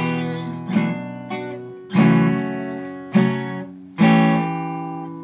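Acoustic guitar strummed chords, each struck sharply and left to ring and fade, the strongest strums falling about a second apart.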